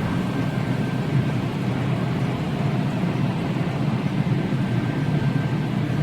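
Automatic car wash's air dryer blowing steadily, heard from inside the car, pushing the rinse water off the body.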